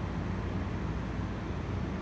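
Steady low rumble and hiss of railway station background noise, with no distinct events.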